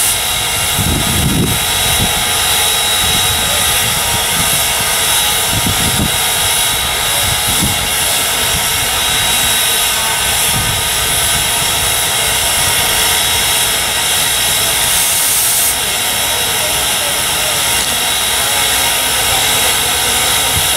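Steam locomotive 475, a 4-8-0, standing at the water tower while its tender is filled: a steady loud hiss and roar with a faint high tone, and a few low thumps in the first half.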